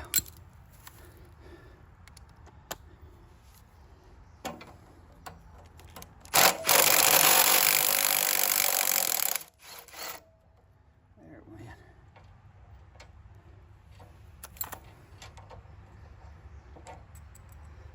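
Impact wrench hammering for about three seconds, starting about six seconds in, on the tight center bolt that holds the chipper blade of a Troy-Bilt chipper shredder. Scattered clinks and knocks of tools being handled come before and after it.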